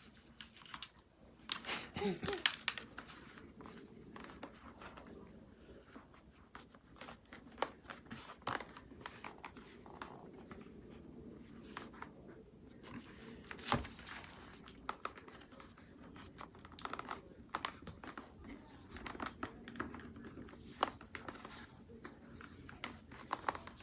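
Hands working an adhesive LED light strip onto a motorcycle helmet shell: irregular crinkling, rubbing and small clicks. The busiest stretch is about two seconds in, with a sharp click about halfway through.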